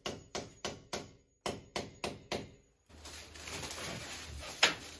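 A run of sharp, even knocks, about four a second, in two short groups; then a steady noise starts and there is a single sharp click near the end.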